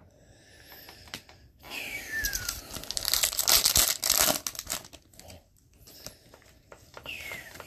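A pack of 2018-19 Upper Deck Series 2 hockey cards being torn open, its wrapper tearing and crinkling loudly for about three seconds from roughly a second and a half in, with softer rustling of handling before and after.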